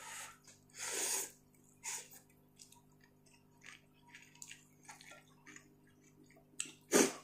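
Slurping ramen noodles and wet chewing. There is a longer slurp about a second in, soft mouth smacks through the middle, and a short, louder slurp near the end.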